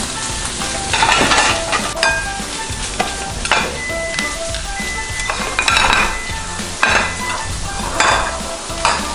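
Food sizzling steadily in a frying pan. Over it come several knocks and scrapes as ceramic plates are set down and slid on the kitchen countertop, with soft background music.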